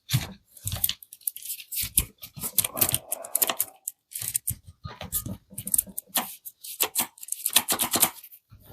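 Parkside mini chainsaw being handled after reassembly: irregular plastic clicks and short rattles, with a brief scraping patch about three seconds in. The motor is not running.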